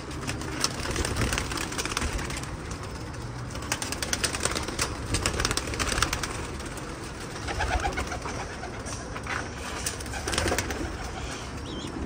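Domestic pigeons cooing in a pigeon loft, with a scatter of short sharp clicks and rustles, thickest about halfway through.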